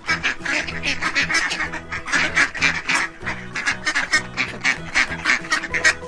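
A flock of mallard ducks quacking rapidly and continuously, many calls overlapping, over quiet background music.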